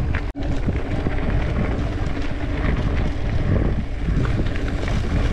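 Wind noise buffeting an action camera's microphone, mixed with the rolling noise of mountain bike tyres on a gravel and rock track. The sound drops out for an instant about a third of a second in.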